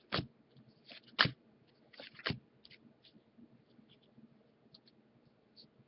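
Baseball trading cards being handled and flipped through: three sharp card flicks in the first two and a half seconds, then faint scattered rustles and ticks.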